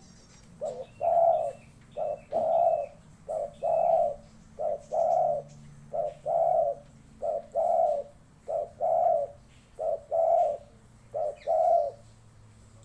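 A dove cooing over and over in a steady rhythm: a short note then a longer, rolling coo, repeated nine times, about once every 1.3 seconds.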